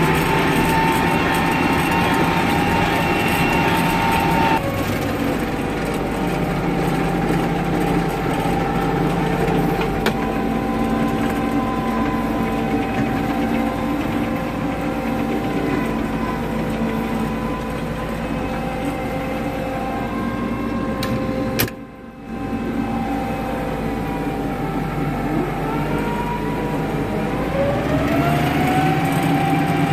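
International 3588 2+2 tractor's six-cylinder turbo-diesel engine running steadily under load while pulling a disk, heard from inside the cab. Its pitch drops slightly about four seconds in and climbs again near the end. About two-thirds of the way through there is a sharp click and the sound briefly drops out.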